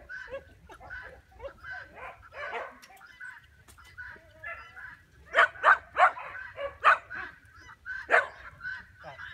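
A dog barking and yipping repeatedly in short sharp calls, loudest in a run of barks about five to seven seconds in and once more about eight seconds in.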